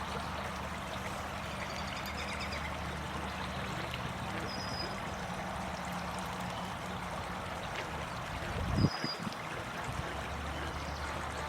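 Steady rush of running water, with a few short, high bird chirps and a single low thump about nine seconds in.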